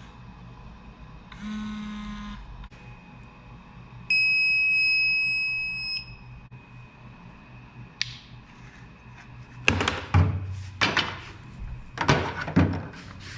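Handheld wood-scanning metal detector giving its metal alerts: a short buzz from its vibration mode about a second and a half in, then a loud, steady high beep lasting about two seconds. Near the end a click, then several seconds of irregular rustling and knocking.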